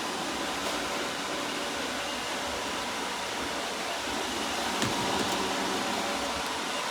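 iRobot robot vacuum running with a steady whir from its motors. A brief knock sounds about five seconds in.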